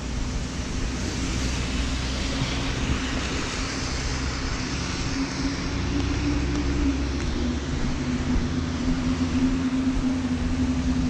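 Rain falling on an umbrella overhead, mixed with city traffic on wet roads: a steady hiss of rain and tyres under a vehicle engine's low hum, which grows stronger in the second half.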